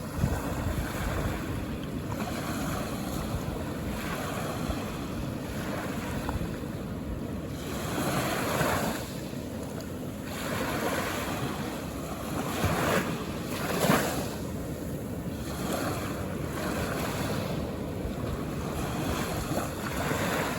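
Calm ocean waves washing onto the shore in a steady wash, with several waves breaking louder, the loudest about two-thirds of the way through.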